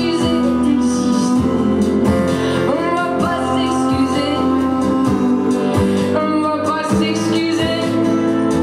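Live song: sung vocals over a strummed acoustic guitar with an electric guitar alongside, at a steady pulse.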